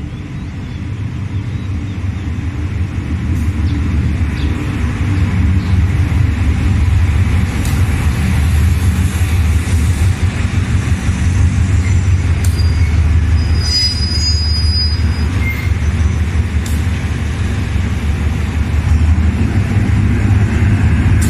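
GE diesel-electric locomotive drawing a passenger express into a station: a deep engine rumble grows louder over the first several seconds as it comes close, then holds. Brief high squeals come from the train about midway as it slows.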